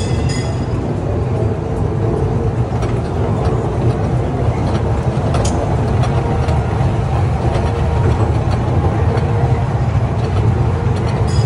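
Kiddie ride train running along its track: a steady low rumble of the moving cars, with one faint click about halfway through.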